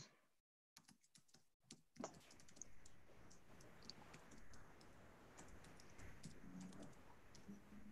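Near silence: the line is completely dead for about two seconds, then faint room noise with small, irregular clicks, like computer keyboard typing or mouse clicks picked up by an open microphone.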